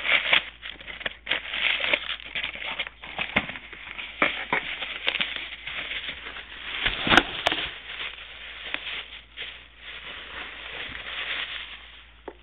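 A mailed package being opened and handled by hand: packaging crinkling and crackling continuously, with scattered knocks and one sharp, louder knock about seven seconds in.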